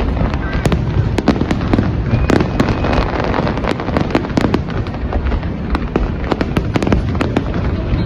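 A dense fireworks barrage: several sharp bangs a second, overlapping over a continuous low rumble.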